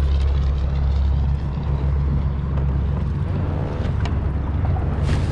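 Steady low rumbling drone of a fishing kayak under way while trolling, with water and wind noise over it.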